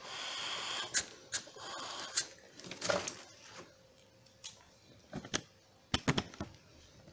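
Air rushing through a BCD's inflator hose in short hissing bursts, then scattered plastic clicks and knocks as the hose and its inflator mechanism are handled.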